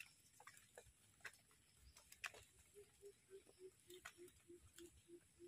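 Near silence with a few faint scattered clicks. From about three seconds in comes a faint run of about a dozen short low notes, evenly spaced at about three a second, from an animal calling.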